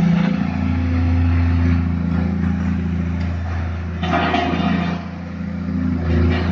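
Volvo SD160 soil compactor's diesel engine running steadily, with a brief rush of noise about four seconds in.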